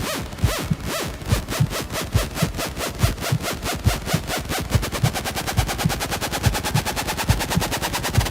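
Electronic dance music build-up: a drum roll that speeds up steadily from a few hits a second to a rapid roll, with a rising tone underneath in its second half.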